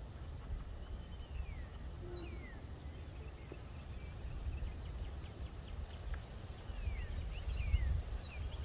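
Wind rumbling on the microphone while birds give several short, falling chirps.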